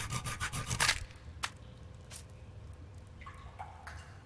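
Cartoon foley of spindly jointed legs skittering: a rapid run of light clicking taps, about eight a second, that stops about a second in. Then one sharp click, a short scrape and a few faint scrapes.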